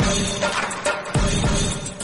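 Music with strong percussion: loud drum and crash hits about every half second over a dense backing.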